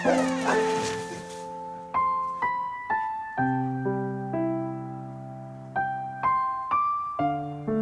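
Background piano music: slow, soft chords and single notes struck about once a second, each ringing and fading away.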